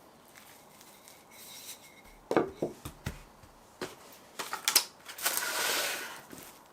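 Kitchen handling sounds of pie-making: a few sharp knocks of utensils or dishes, then a rustling hiss lasting about a second.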